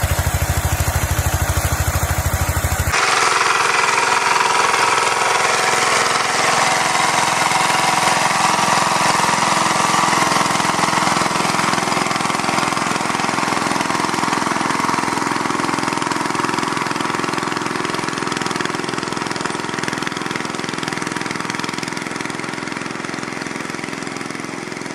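Small engines of walk-behind tractors running steadily; about three seconds in the sound switches abruptly from one engine to another with a brighter, higher drone.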